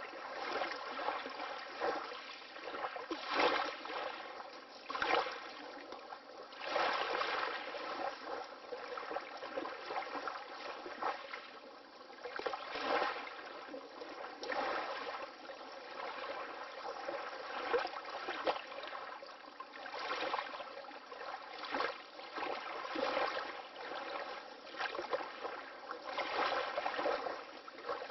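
Water lapping: small wavelets slapping and splashing in an uneven rhythm, swelling and easing every second or two, with little deep sound beneath.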